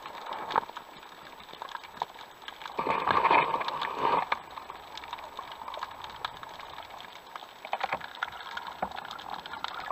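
Underwater sound picked up through an action camera's waterproof housing while swimming: water rushing past in swells, loudest from about three to four seconds in, with scattered small clicks and crackles throughout.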